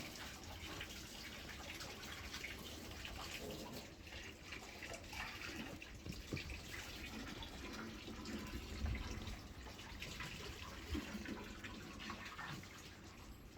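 Running water trickling and splashing steadily, with many small irregular drips and splashes.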